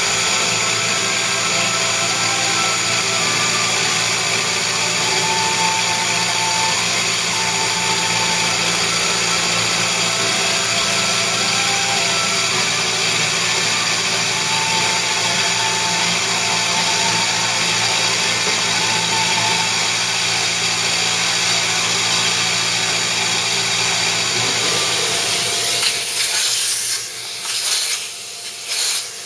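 Milling machine running with a steady motor whine as an end mill cuts a pocket into the PM-30's cast iron Y slide. About four seconds before the end the cutting stops, and a few short, loud noises follow as the pocket is cleared by hand.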